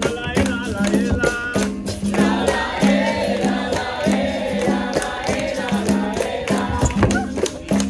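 Capoeira roda music: a group singing a chant in chorus over a berimbau and hand percussion. The berimbau's low tone repeats over sharp, regular beats, and the chorus swells from about two seconds in.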